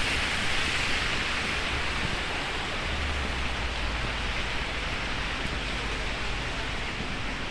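Heavy rain falling: a steady, dense hiss, with a low rumble underneath.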